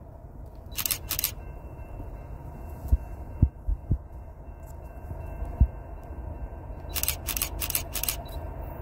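Wind rumbling on the microphone with several short low thumps. There are a few brief crackles, and a faint steady high tone comes in about a second in.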